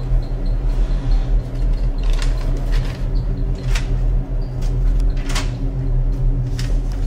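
Spiral-notebook paper pages being flipped, a handful of quick rustles at uneven intervals, over a steady low hum.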